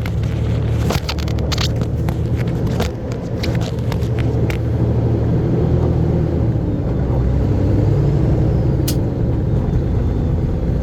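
Engine drone and road noise inside a truck cab while driving, with scattered rattles and clicks in the first few seconds and one sharp click about nine seconds in.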